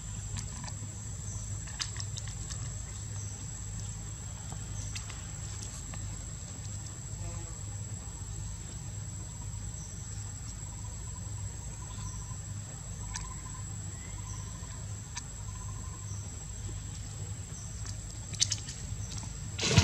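Steady high-pitched insect drone over a low hum, with scattered faint clicks and a couple of sharp knocks near the end.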